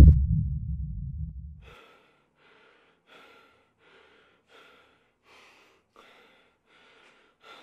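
A deep boom at the start that fades out over about two seconds, then a woman panting hard in short, quick gasps, about one and a half breaths a second.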